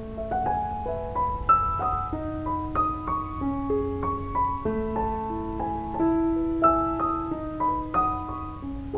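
Background piano music: a melody of separate notes over held lower notes.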